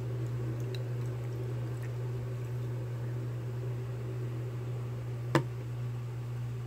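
A wet compressed cotton towel being squeezed and pulled open over a plastic cup of water, faint wet squishing with a few small ticks, over a steady low hum. One sharp click a little after five seconds in is the loudest sound.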